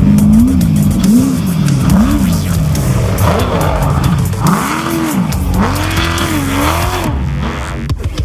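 Off-road race vehicle's engine revving up and down again and again as it is driven hard, with electronic music underneath; the engine fades out near the end.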